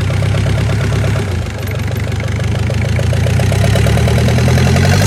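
Korean truck engine running with a fast, even clatter. It dips briefly about a second and a half in, then slowly grows louder.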